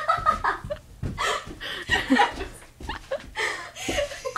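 A few people laughing and chuckling in short bursts, with bits of voice among the laughs.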